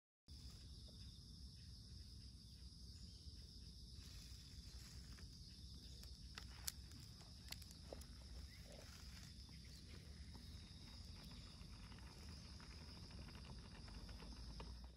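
Faint outdoor ambience with a steady high-pitched drone and a low rumble. Between about six and eight seconds in come a few soft clicks and scuffs from a Shiba Inu walking and sniffing on a gravel path.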